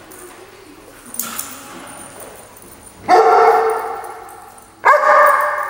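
Dog barking during rough play: two loud barks, about three and five seconds in, each trailing off over a second or more.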